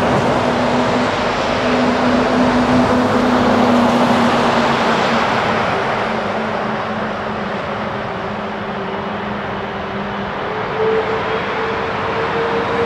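Airbus A330-200 airliner's jet engines running at taxi power as it taxis: a steady rushing noise with a low engine tone that sinks slightly in pitch, and a higher whine from about ten seconds in that rises a little.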